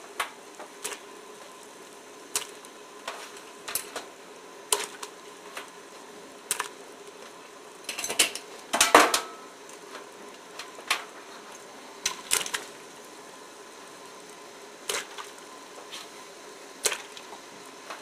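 Live crawfish dropped one at a time into a stainless steel pot of boiling water, making irregular clicks and small plops, with a louder clatter about eight to nine seconds in. A faint steady hum runs underneath.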